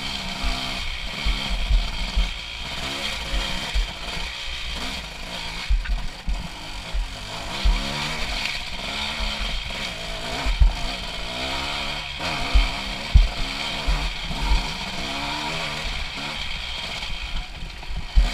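Honda CRF250 dirt bike's single-cylinder four-stroke engine through an HGS aftermarket exhaust, revving up and down as it climbs a rough trail, with low thumps and a few sharp knocks.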